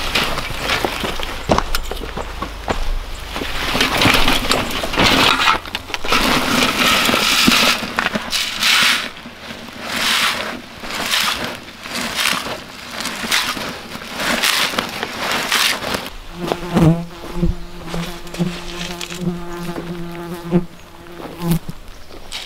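Irregular scraping and rustling noises, then for about five seconds near the end a fly buzzing close by with a steady low hum.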